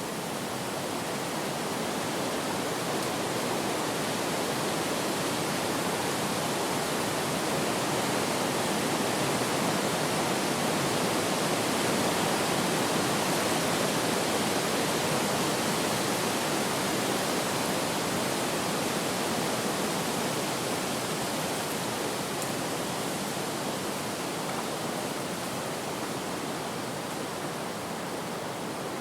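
Steady rushing wind, swelling slowly to its strongest about halfway through and easing off again.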